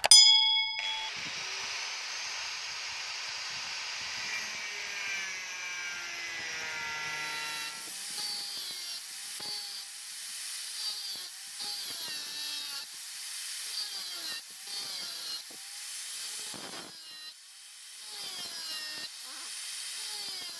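Angle grinder with a thin cut-off disc starting up and running with a high whine. Then it cuts a row of notches into the spine of a steel knife blade, the pitch dipping briefly about once a second as the disc bites into the metal for each notch.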